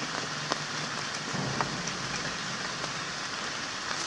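Steady rain falling, with scattered sharp ticks of drops striking nearby surfaces.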